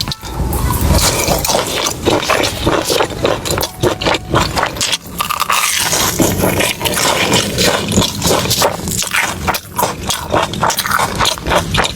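Close-miked eating of squid stuffed with shrimp paste: biting and chewing that comes as a dense, quick, irregular run of wet clicks and crackles.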